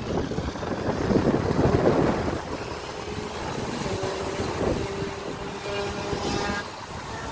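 Kyosho Inferno Neo 3.0 VE electric RC buggy on a full-speed run, its Surpass Hobby 4076 2000kv brushless motor on 6S whining, with tyre and wind noise. It is loudest in the first two seconds as it launches, then settles to a thinner, steady whine as it pulls away.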